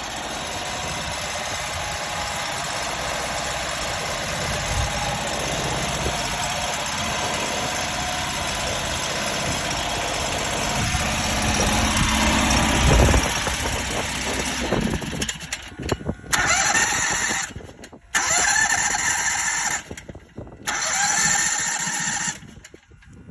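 Small gasoline engine of a mini skid steer running steadily, an engine the owner says is smoking. After about fifteen seconds the sound breaks off abruptly and comes back in several short stretches.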